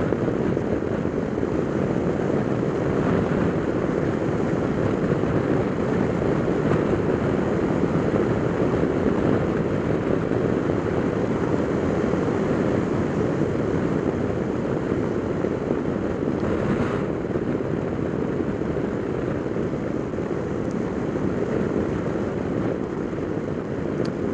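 Steady rush of wind and engine noise from a Piaggio MP3 500 three-wheeled scooter riding along at road speed, picked up by a camera mounted on the bike.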